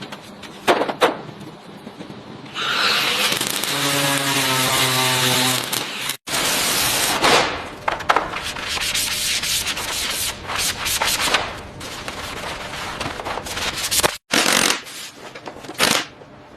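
Repeated rubbing and scraping of hand work on a car, in short clips with abrupt cuts between them. A motor hum with a steady pitch sits under it for a couple of seconds about four seconds in.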